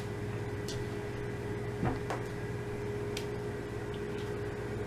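Dishwasher running: a steady hum with a constant mid-pitched tone, and a few faint clicks.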